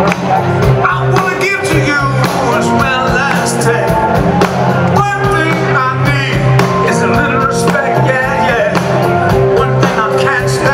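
Live rock band playing, with a male lead vocalist singing over bass, guitar and a steady drum beat.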